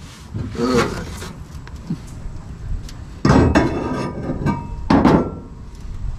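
Metal parts clanking and rattling with a short ring, in two bouts, one beginning suddenly about three seconds in and a shorter one about five seconds in.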